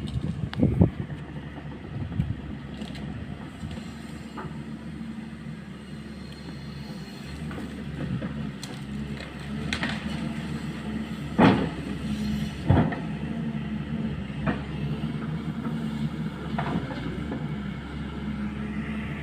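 Excavator's diesel engine running steadily, with several sharp knocks from the machine at work, the loudest about eleven and thirteen seconds in.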